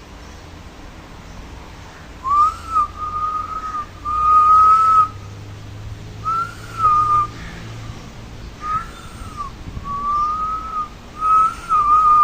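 Clear whistling in a series of held and arching notes, starting about two seconds in and repeating several times.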